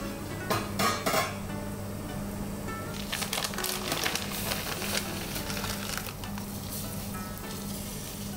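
Water boiling in a stainless steel stock pot of kombu dashi, a dense crackle of bubbles from about three seconds in. A few sharp taps about half a second to a second in, with soft guitar music underneath.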